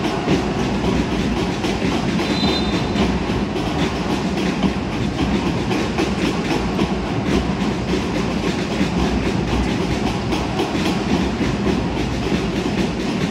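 Basketball arena crowd noise with a continuous, irregular clatter of rapid claps or clacks, and a brief high tone about two seconds in.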